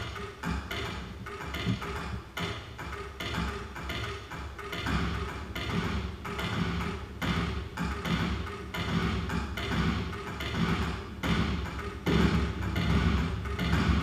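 Live electronic music made in Kyma: a busy, repeating rhythm of tapping and thudding hits built from field recordings arranged in euclidean rhythms and convolved through a granulated elevator recording, over a low drone. It gets louder about twelve seconds in.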